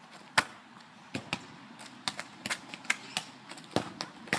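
A series of sharp thuds and taps from a football being kicked against a wall, bouncing back and being struck at goal. The hardest kick comes about half a second in, and lighter touches and bounces follow through the rest.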